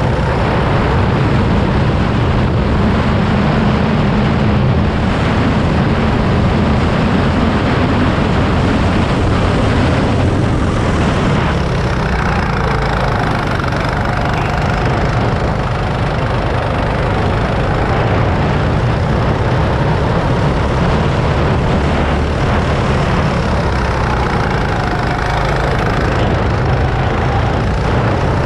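Go-kart's small petrol engine running hard on the track, heard from the driver's seat, its pitch rising and falling with the throttle through the corners.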